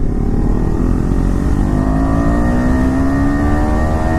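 KTM Duke 250's single-cylinder engine through its stock exhaust with the dB killer removed, pulling hard in a low gear, its pitch rising steadily as the bike accelerates.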